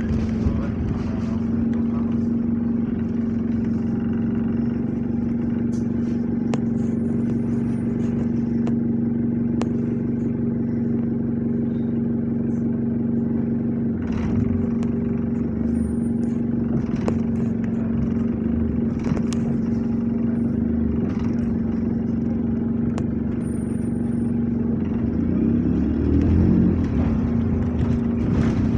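Diesel engine of double-decker bus SLN 37504 running steadily under way, heard from inside the passenger cabin, growing louder for a moment near the end.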